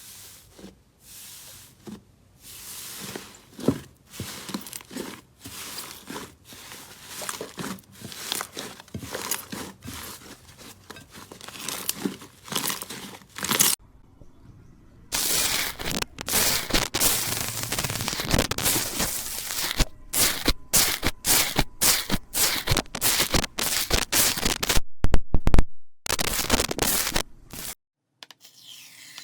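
Slime being squeezed and pressed by hand, giving a dense run of crackling, popping bursts. There is a short break about halfway, and the crackling after it is louder.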